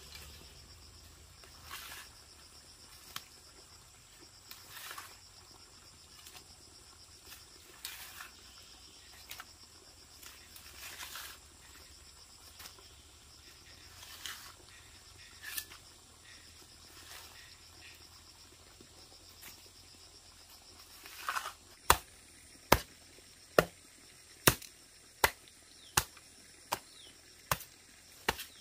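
A hand tool striking in a steady chopping rhythm, about one sharp blow every 0.8 seconds, starting a little past the three-quarter mark, nine blows in all. Before that only soft, scattered scraping sounds, over a faint steady drone of insects.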